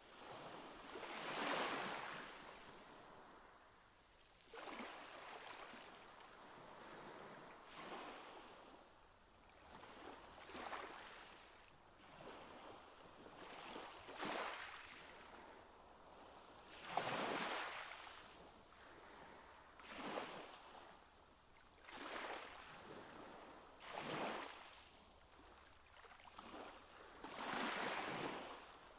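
Faint water washing in the sea otters' pool, coming in surges that swell and fade about every two to three seconds.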